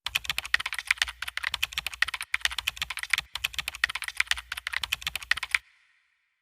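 Rapid keyboard typing, a fast run of key clicks with two brief pauses, stopping about five and a half seconds in with a short faint ring.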